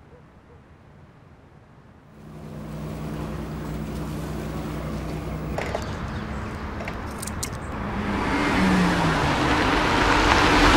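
A car driving up, its engine and tyre noise growing louder over the last few seconds. Before it, after a quiet start, a low steady hum sets in about two seconds in.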